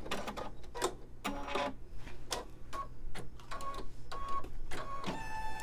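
Computerized embroidery machine sewing the last stitches of a free-standing lace design: irregular clicks and knocks of the needle mechanism over a steady motor hum. A short electronic tone sounds near the end as the design finishes.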